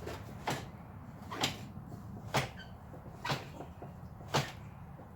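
Drivetrain of a 1980 Honda CB750F clunking as the rear wheel is rocked by hand in first gear with the clutch lever pulled in: five short knocks about a second apart. The wheel won't turn free, which the owner takes for stuck clutch plates.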